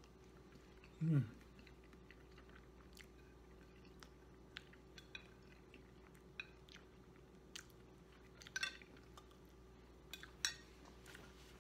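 A man chewing a mouthful of food, with faint scattered clicks of a fork against a plate. A short falling hum from him about a second in.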